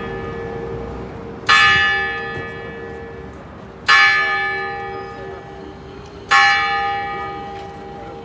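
Church bell tolling: three strikes about two and a half seconds apart, each ringing out and slowly fading, over a steady low hum.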